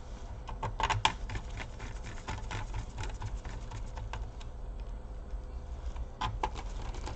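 Irregular clicks and taps of laptop plastic parts being handled and fitted, with a cluster of sharper clicks about a second in and another near the end.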